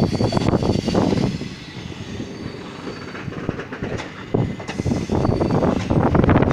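Blue Indian Railways sleeper coaches rolling past close by as the express departs, their wheels knocking and clattering over the rails. It is quieter in the middle and grows louder again after about four seconds.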